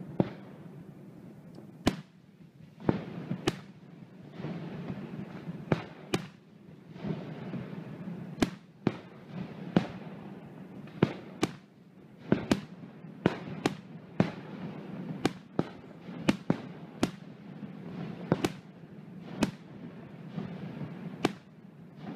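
Aerial firework shells bursting overhead: a long, uneven string of sharp bangs, roughly one a second and sometimes two in quick succession, over a steady noisy haze between them.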